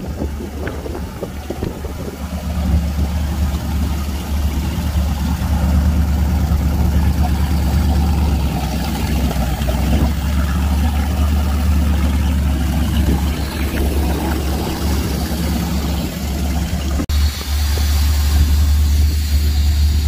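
Ford 460 big-block V8 jet boat engine, newly fitted with Holley Sniper fuel injection, running steadily in the water with a strong low, even note that grows louder over the first few seconds. It breaks off for an instant near the end.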